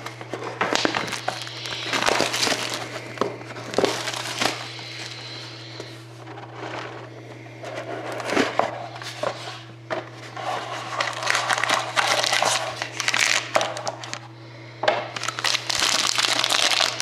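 Plastic wrapping crinkling and crackling in irregular bursts as a sealed box of trading cards is unwrapped and opened by hand, over a steady low hum.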